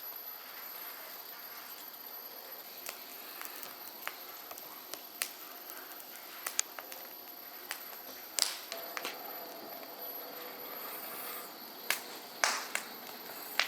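Scattered sharp clicks and light knocks over a faint steady hiss, with a few louder clicks about eight seconds in and again near the end.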